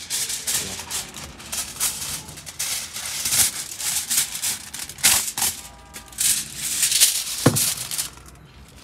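Aluminium foil crinkling and rustling in a quick run of crackles as a sheet is handled and pressed flat over a wooden cutting board, with a short falling squeak near the end.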